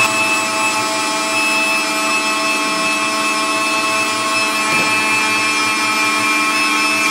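Electric meat grinder running steadily under load, its motor giving a constant whine as mushrooms are pushed down through the fine grinding plate.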